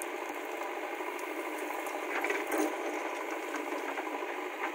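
JCB backhoe loader's diesel engine running steadily as the backhoe digs soil and lifts the loaded bucket, a constant mechanical clatter with a few louder knocks about two seconds in.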